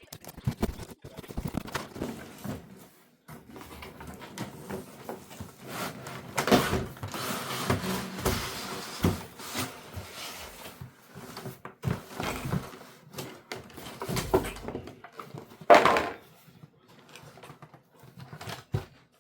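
Packaging being handled and opened: irregular knocks, clicks and rustling of box and wrapping, with one loud rustle a few seconds before the end.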